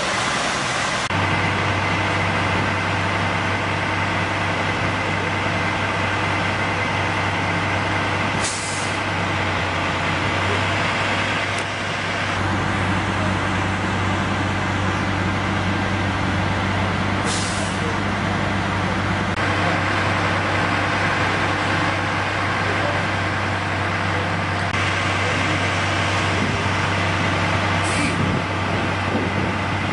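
Fire engine's diesel idling steadily, with three short hisses of released air from its air system, roughly nine seconds apart.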